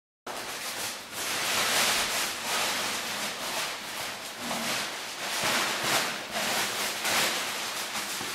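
Ventilation air rushing through the slotted grilles of an overhead duct, a steady hiss that swells and ebbs. It cuts in abruptly just after the start.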